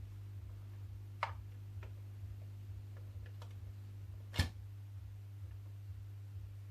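Steady low hum from the Dual KA 20 turntable receiver, with a few sharp clicks scattered over it, the loudest about four seconds in.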